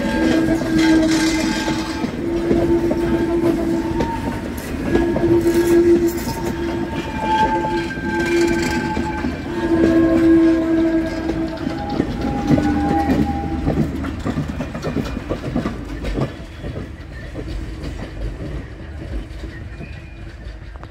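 Vintage passenger coaches of a steam-hauled tourist train rolling past on the rails, wheels clacking over rail joints, with squealing tones that come and go. The sound gets quieter over the last several seconds as the train moves away.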